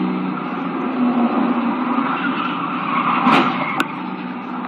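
Steady road and engine noise of a moving car heard from its dashcam, broken about three seconds in by a collision with another car: a short crunch, then a sharp bang half a second later.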